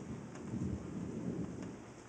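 Low rolling rumble of thunder that swells twice and eases off near the end.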